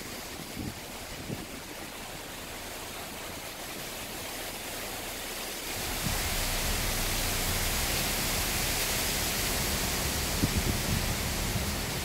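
Steady rushing hiss of water leaking through the Oroville Dam main spillway gates. It grows louder about halfway through, when a low rumble joins it.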